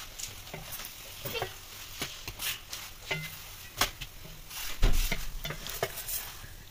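Wooden spatula scraping and knocking against a metal frying pan as a laccha paratha is pressed and turned while it toasts, over a faint sizzle. There are about a dozen short scrapes and taps, with the loudest knock about five seconds in.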